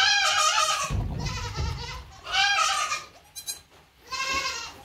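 Goat bleating: three high, wavering bleats, the first already under way and the others about two seconds apart.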